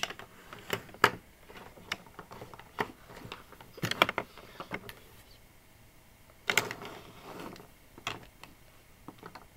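Plastic gel highlighters being handled and set down one by one on a desk: a series of irregular sharp taps and clicks, the loudest about a second in, at four seconds and at six and a half seconds.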